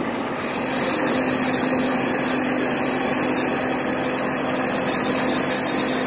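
Bobcat S510 skid steer running with its auxiliary hydraulics driving a Skid-Lift basket: a steady, loud hydraulic hiss with a low hum comes on a moment in as the basket moves, over the running engine.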